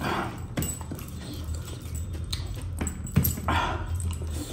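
Close-miked eating sounds: fingers squelching through mutton curry and rice in gravy, with wet mouth noises, louder near the start and again after about three and a half seconds.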